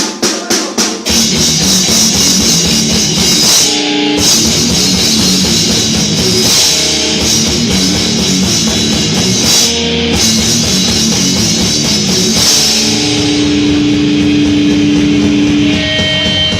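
Heavy metal band playing live and loud: distorted guitar, bass and drum kit. It opens with a quick run of hits, and the full band comes in about a second in, with a long held note near the end.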